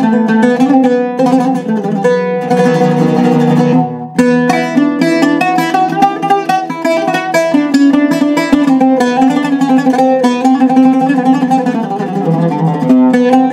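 Solo on a cedar-topped, walnut-backed Iraqi-style oud picked with a plectrum, in quick melodic phrases. From about two seconds in, a fast tremolo on one note runs for a second and a half, broken off briefly at about four seconds before the phrases resume.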